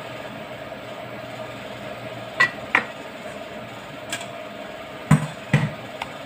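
Several sharp knocks and clinks over a steady background hum: a stainless steel colander and a chef's knife being handled and knocked against a plastic cutting board. The first pair clinks, and a second pair near the end lands with a duller thud.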